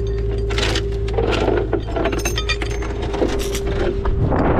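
Tow truck engine idling with a steady whine, under rustling swells and a few light metallic clinks in the second half.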